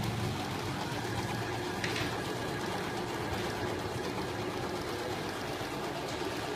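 Brother Puppet electric household sewing machine running steadily, sewing a zigzag stitch.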